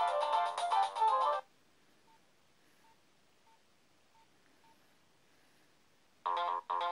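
Nokia 6230i preloaded polyphonic ringtone playing a bright melody, which cuts off about a second and a half in. A pause follows with a few very faint short beeps. The next ringtone starts near the end with a few short stabs.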